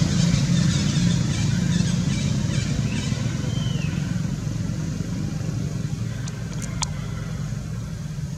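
Low, steady drone of a motor vehicle's engine, slowly growing fainter, with a brief high chirp about three and a half seconds in and a few sharp clicks near the end.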